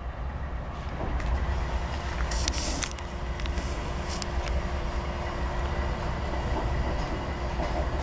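Diesel locomotive running in the rail yard: a steady low rumble that grows louder about a second in, with a faint steady hum. A short hiss comes about two and a half seconds in, with a few scattered clicks. No horn sounds.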